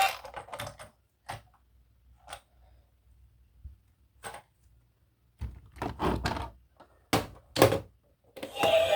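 Scattered clicks and knocks of toys being handled, sparse at first, then a run of louder knocks and thunks in the second half.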